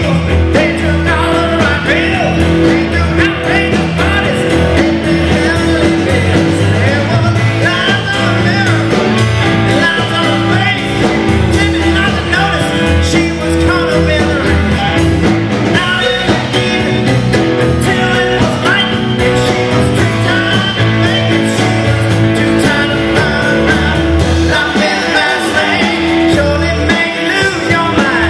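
Live rock band playing an up-tempo number: a male lead vocalist sings over Fender Telecaster electric guitar, electric bass, drum kit and keyboard.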